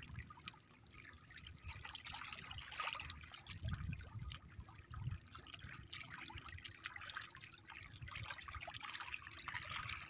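Small sea waves lapping and trickling among the rocks of a seawall, with soft low surges as the water washes in.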